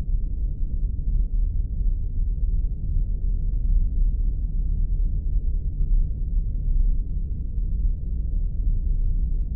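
Spaceship sound effect: a steady deep rumble with no clear pitch and nothing higher above it.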